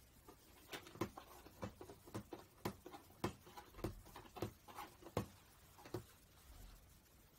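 A cat's claws scratching and scraping at a cardboard box: a run of quick, irregular scratches and taps for about five seconds, then stopping.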